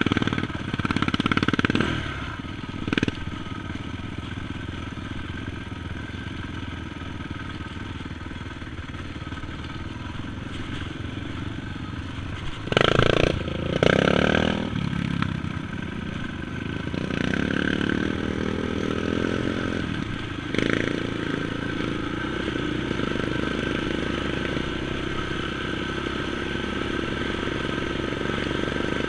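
Sport ATV engine, a Honda TRX450, running under the rider along a dirt trail, its steady drone broken by throttle surges, the loudest two in quick succession about halfway through.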